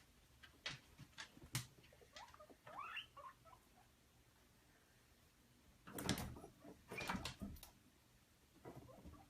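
Faint scrabbling and tapping, most likely a cat's paws and claws moving about. There is a short squeaky sound about three seconds in, and a louder flurry of scuffling knocks around six to seven seconds.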